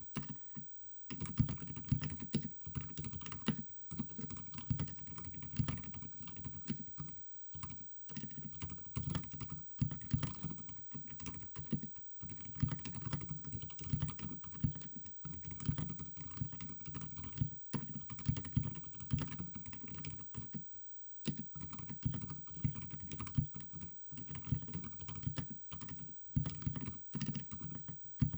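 Fast continuous typing on a mechanical keyboard with Outemu silent white linear switches under XDA-profile keycaps: muffled, low-pitched keystrokes with little high click, pausing briefly a few times.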